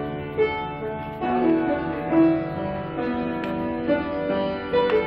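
Background instrumental music: a melody of held notes that change about every half second.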